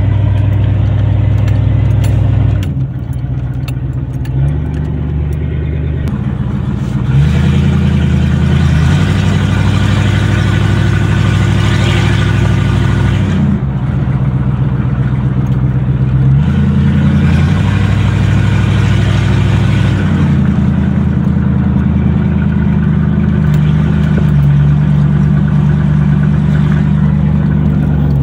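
Chevy 454 (7.4 L) big-block V8 running loud through open exhaust pipes with no mufflers or catalytic converter, heard from inside the cab as the truck drives. The engine note steps up and down several times as it pulls and eases off.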